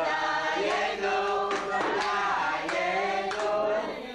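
Several voices singing a chanted Haggadah passage in Hebrew together, in long held notes that slide between pitches.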